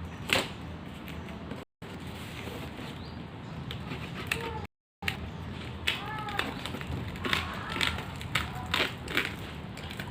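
Hot Wheels diecast packaging being handled and opened by hand: crinkling plastic and cardboard with many sharp clicks and taps. The sound cuts out briefly twice.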